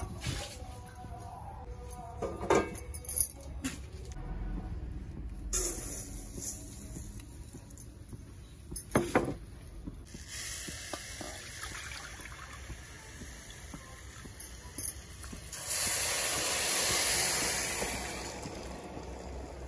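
Water poured from a glass bowl onto sugar in a metal pan, a splashing pour of about three seconds near the end, over the steady hiss of a lit gas stove burner. A few sharp knocks come earlier, one about nine seconds in, as the pan and utensils are handled.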